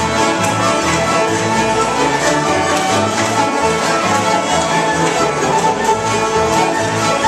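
Acoustic string band playing a tune together: fiddle carrying the melody over strummed acoustic guitars and a mandolin, with a steady beat of guitar bass notes.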